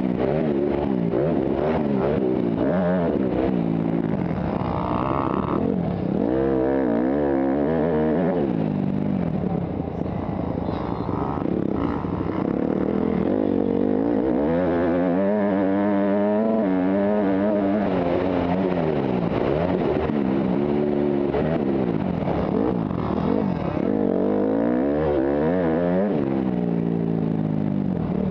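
Motocross dirt bike engine heard close up from the rider's helmet, revving up and dropping back over and over as the rider accelerates down the straights and backs off for the turns.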